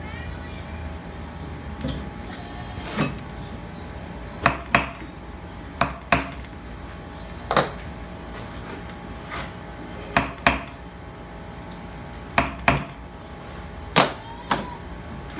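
Sharp metal-on-metal knocks and clinks from hand tools and parts during a tractor hydraulic pump tear-down, about a dozen strikes, many in quick pairs about a third of a second apart, each with a short ring. A steady low hum runs underneath.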